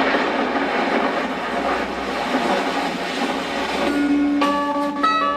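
A steady rushing noise starts suddenly, and about four seconds in a music track with plucked-string notes begins over it: the opening of a children's rhyme video.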